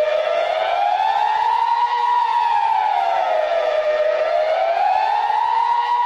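Civil-defence siren wailing, its pitch rising and falling slowly, about one full rise and fall every four seconds: the Swiss general-alarm tone.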